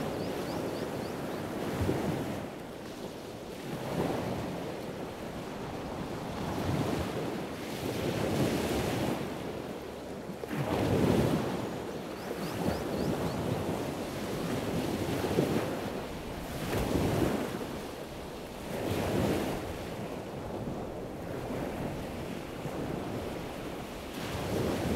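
Ocean surf: waves washing in, the rush swelling and falling away every two seconds or so.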